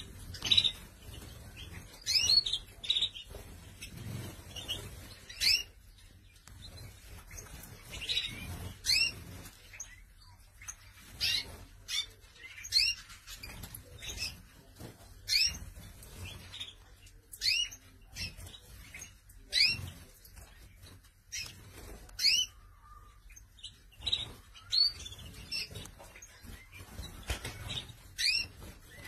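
Canaries calling: short, high chirps repeated about once a second, sometimes two or three in quick succession.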